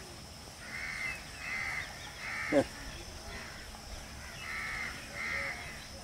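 Crow cawing: three harsh caws in quick succession, then two more a couple of seconds later. A short sharp falling sound at the end of the third caw is the loudest moment.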